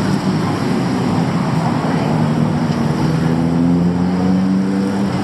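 Street traffic noise with a motor vehicle's engine running close by. Its pitch climbs slightly over the second half.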